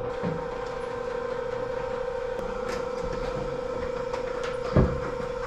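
Metal roller shutter garage door rolling up: a steady hum and light rattling of the slats, then a single loud clunk near the end.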